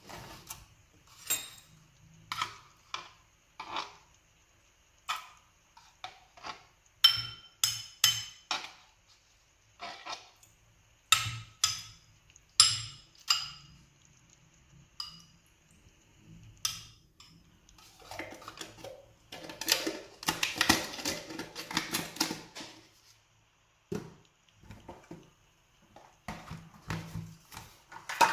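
A metal spoon knocks and clinks against a glass bowl and a plastic tub as yogurt is scooped into the bowl, in sharp separate clinks a second or so apart, some with a brief ring. About two-thirds of the way through comes a denser few seconds of the spoon scraping and stirring in the bowl, then scattered clinks again.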